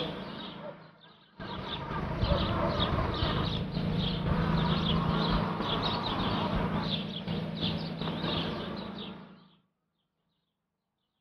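Outdoor noise with a steady low hum and a high chirping that repeats about twice a second. It drops out briefly about a second in and cuts off suddenly near the end.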